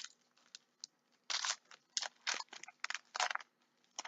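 Football trading-card pack wrapper being torn open and crinkled, in a series of short crackly bursts.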